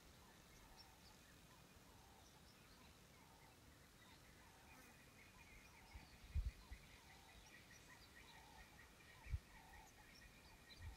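Faint bird calls: a short call repeated about once a second, joined about halfway through by a chattering trill and small high chirps. Two brief low thumps, the loudest sounds, come about six and nine seconds in.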